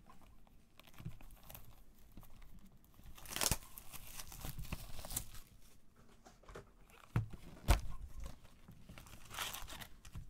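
Plastic shrink-wrap being torn and crinkled off a cardboard trading-card box, in irregular rustling bursts, with a couple of dull knocks as the box is handled about seven to eight seconds in.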